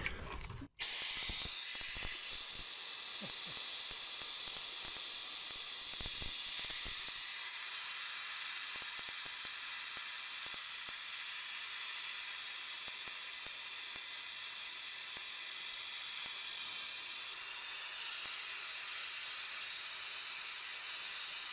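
Air-powered vacuum brake bleeder hissing steadily as it draws fluid through the bleeder screw of the Chevy Blazer's rear drum-brake wheel cylinder, starting about a second in; it is pulling about as much air as fluid. A few soft knocks in the first several seconds.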